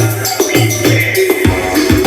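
Electronic dance music played loud through a large speaker rig. Held bass notes give way about one and a half seconds in to a deep thumping bass beat.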